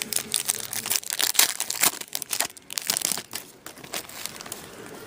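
Foil wrapper of a hockey card pack crinkling and tearing as it is opened and handled, in quick rustles for about three and a half seconds, then quieter.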